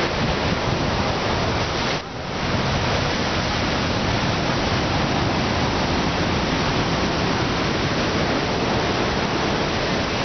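Steady roar of heavy surf breaking on the beach, dipping briefly about two seconds in.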